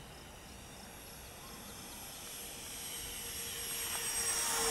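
Twin 50 mm 12-blade electric ducted fans of an RC A-10 Warthog jet whining, with a few thin high tones, growing steadily louder as the plane approaches.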